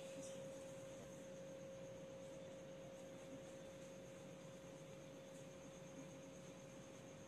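Near silence: a faint steady single tone held throughout, over a low hiss.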